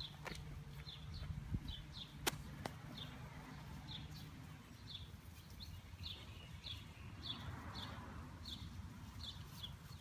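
Faint outdoor ambience: a short high chirp repeated about twice a second over a low steady rumble that fades about halfway through, with one sharp click about two seconds in.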